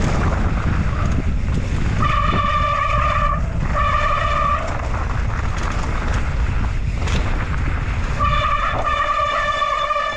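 Mountain bike disc brakes squealing in a steady high tone, three times: about two seconds in, briefly around four seconds, and again from about eight seconds on. Under it is a constant low rumble of wind and the bike on a rough trail.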